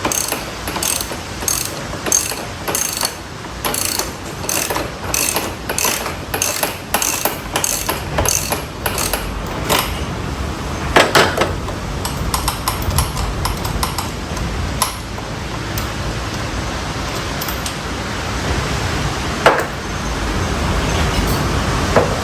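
A socket ratchet wrench clicking as it is worked back and forth on a nut, about three clicks a second for the first half, then a loud knock and a few scattered clicks, with another knock near the end.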